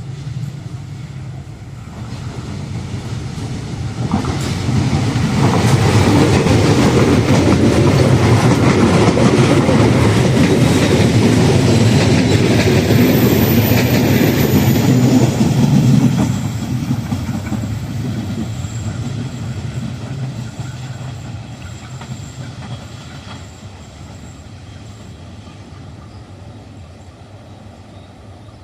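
A train passing at speed: it builds up about four seconds in, is loud for some ten seconds with wheels clattering over the rails, then fades away.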